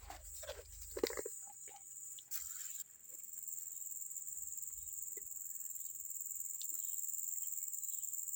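Crickets chirring steadily in a high, even drone across a rice paddy, with a few faint knocks from handling in the first second.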